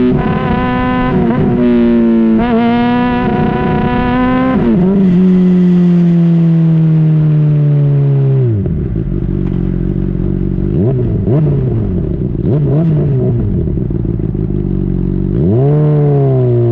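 2010 Honda CBR600RR inline-four through a Yoshimura slip-on exhaust, ridden hard: high revs for the first few seconds, then engine speed falls steadily as the bike slows. It runs at low revs with a few short throttle blips, then revs climb again near the end as it accelerates.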